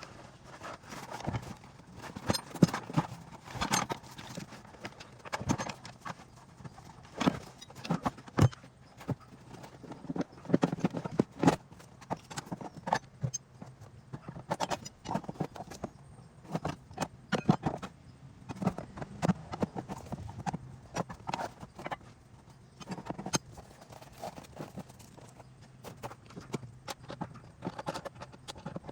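Irregular clunks, knocks and metallic rattles of car tools and parts being handled and stowed back under an SUV's cargo floor, several a second at times with short pauses between.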